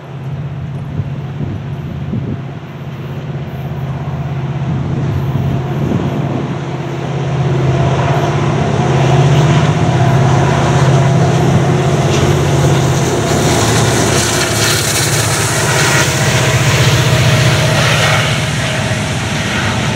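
Diesel freight locomotive and intermodal train passing: a steady engine rumble that grows louder about eight seconds in, with the rushing noise of the wheels on the rails rising with it.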